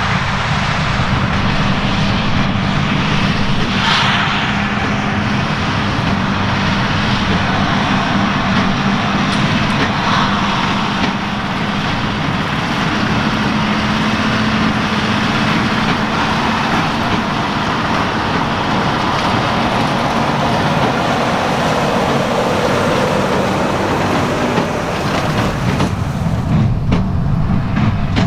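Large tractor engine running steadily under load, with the machinery of a big square baler working straw.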